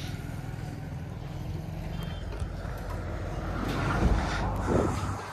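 A heavy vehicle's engine running with traffic rumble, swelling to two louder peaks about four and five seconds in.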